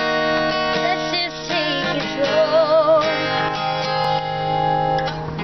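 Guitar strummed, its chords ringing on, with a voice holding a loud wavering note for about a second in the middle.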